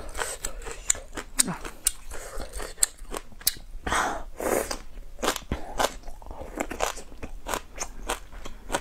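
Close-up crunching and chewing of shredded spicy pickled vegetable roots: many short crisp crunches throughout, with the loudest moment about four seconds in as a new mouthful is bitten.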